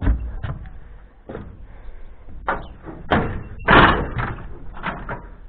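A series of irregular knocks and thuds over a steady low rumble, the loudest a bang about four seconds in.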